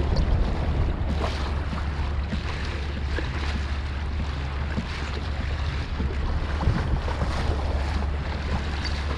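Wind buffeting the camera microphone in a steady low rush, with water lapping and splashing against a drifting kayak's hull.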